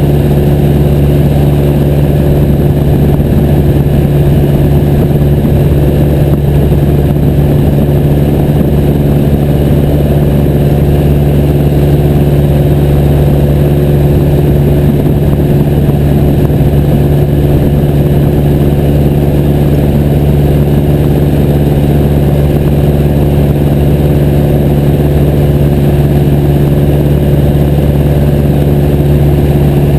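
Piper J3 Cub's engine and propeller running at steady power in flight, a loud constant drone with no change in pitch.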